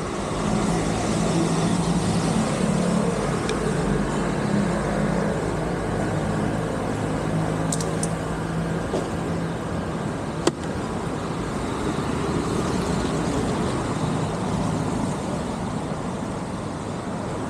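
Royal Enfield Interceptor 650's parallel-twin engine running under way, its steady hum fading and returning, over wind and road noise. One sharp click about ten seconds in.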